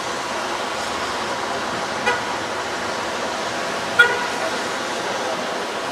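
Steady outdoor city background noise, with two short, sharp ringing sounds about two seconds apart, the second the louder.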